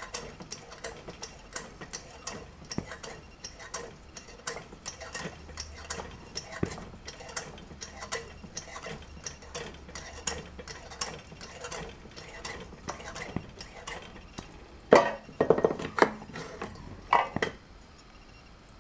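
Butterfly 828 kerosene pressure lantern's hand air pump worked in quick, even strokes, clicking about two to three times a second to keep the tank pressurised, as the lantern needs constant pumping. Near the end come several louder metal knocks and clatters.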